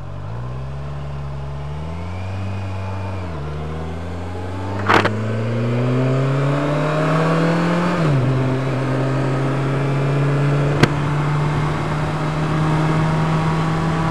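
Sport motorcycle engine pulling away and accelerating: its pitch climbs, drops at gear changes about 3 and 8 seconds in, then holds steady at cruising speed. Wind rush on the helmet microphone grows with speed, and there is a short knock about 5 seconds in.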